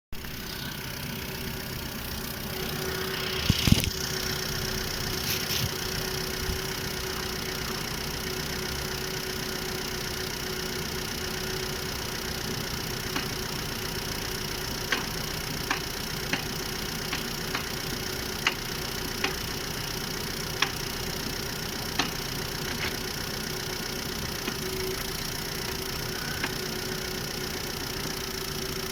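Volkswagen Polo 1.6-litre petrol engine idling, heard from the engine bay, as the clutch is let out. A loud clunk comes about three and a half seconds in, then sharp single knocks every second or so later on: the knock on clutch release that the owner is chasing in this new car's manual gearbox and clutch.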